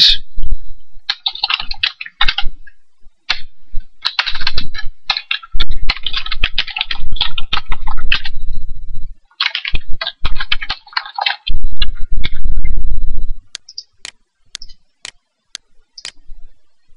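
Computer keyboard typing in quick bursts with short pauses, then a few separate sharp clicks over the last few seconds.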